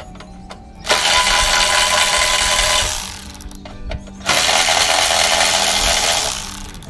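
Power driver running twice, about two seconds each time, backing screws out of a pressure washer's housing. Each run starts suddenly and trails off as the screw comes free.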